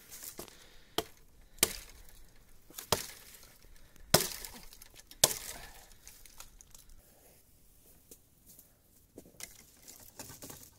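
A series of sharp knocks or cracks: five loud ones about a second apart, the last two with a short ringing tail, then a few fainter clicks near the end.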